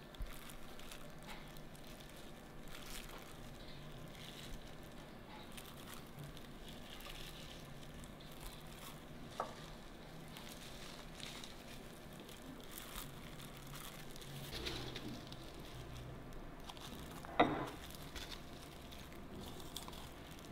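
Faint kitchen handling sounds: light rustling with scattered small clicks and taps, and one short louder sound about 17 seconds in.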